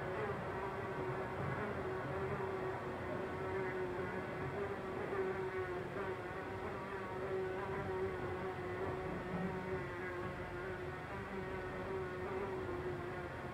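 Housefly buzzing as it flies around a room, one continuous buzz whose pitch wavers slightly, over quiet room tone.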